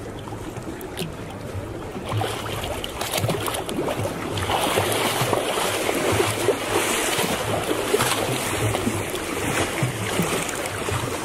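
Sea water rushing and splashing around a moving boat, over a steady low engine hum; the splashing grows louder about two seconds in.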